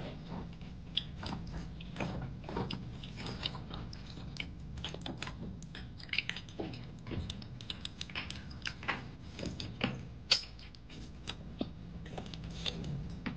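A small child chewing and smacking while eating, close to the microphone: irregular short clicks and smacks over a low steady hum.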